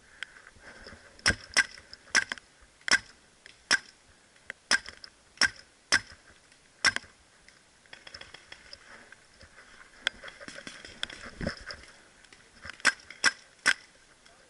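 Paintball gunfire: about a dozen sharp single cracks at irregular intervals, with a quick run of three near the end.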